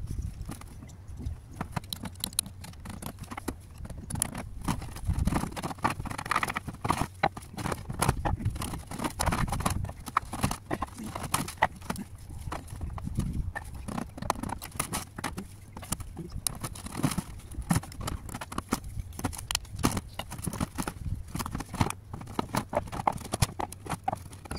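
Clay roof tiles being lifted and stacked, knocking against one another in many irregular clunks.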